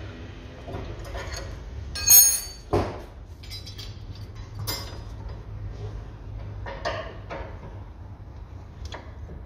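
Metal hand tools clinking and knocking against suspension parts while an anti-roll bar drop link is being unbolted. There is a sharp ringing clink about two seconds in, then a duller knock, and a few lighter clinks later.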